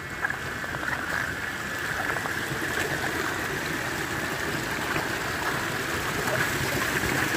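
Stream water running steadily, a constant rushing flow with no break.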